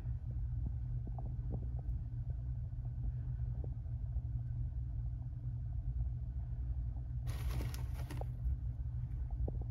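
Steady low rumble with faint scattered ticks, and a brief rustle lasting about a second a little over seven seconds in.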